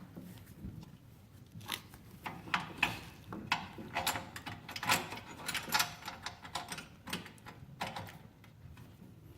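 Irregular light clicks and rattles of hands working a bungee cord around a tool box, the cord's metal hooks knocking as it is threaded underneath and pulled tight.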